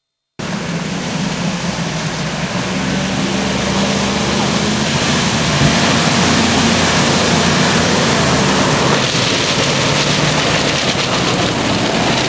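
Hummer H1 engine running as the truck drives through a muddy off-road track, under a loud steady rushing noise. The sound cuts in abruptly about half a second in.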